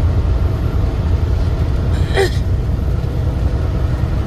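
Steady low rumble of a semi-truck's engine and road noise inside the cab while driving at highway speed. About halfway through, a brief sound slides down in pitch.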